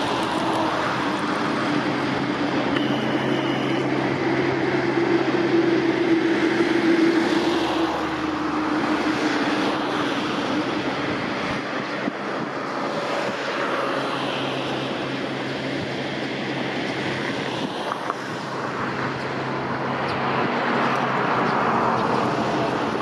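Road traffic: cars passing close by, their engine and tyre noise swelling and fading several times. Under them a steady low engine hum from the Kubota rice transplanter working the flooded paddy.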